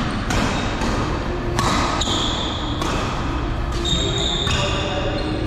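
Badminton rally: rackets striking the shuttlecock back and forth several times, with sneakers squeaking on the court floor in between.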